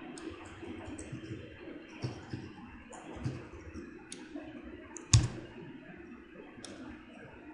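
Scattered clicks of a computer keyboard and mouse being worked: several light clicks and one sharper click about five seconds in, over a low steady hum.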